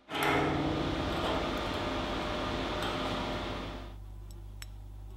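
A machine's cooling fan starting up with a sudden loud rush of air for about four seconds, then dropping to a steady low hum.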